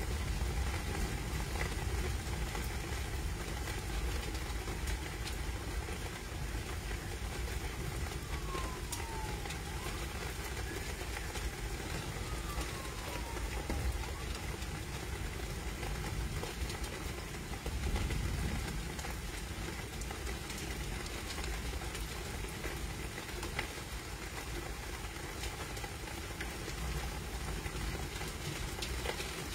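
Steady low rumbling background noise of a stormy night outdoors, swelling briefly about eighteen seconds in, with two faint falling tones near the middle.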